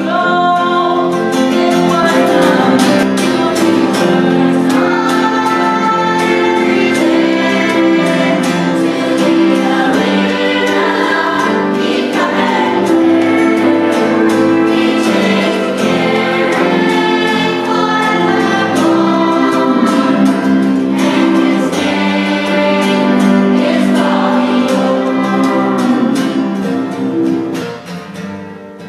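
Young students' choir singing a song together, with instrumental accompaniment; the music dies down near the end.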